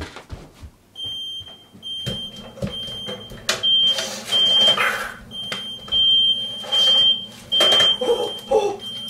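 Smoke alarm sounding a high, repeating beep, set off by smoke from food burning in a toaster oven. Knocks and bumps of hurried handling come in between the beeps.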